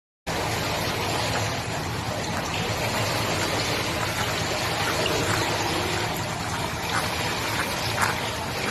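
Pool water churning and splashing steadily as a small dog in a life vest paddles through it, with a few short splashes in the second half.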